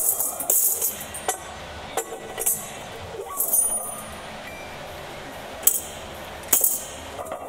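Metal gym equipment clinking and jingling in short, irregular bursts: loose chains and barbell hardware being handled and knocked together.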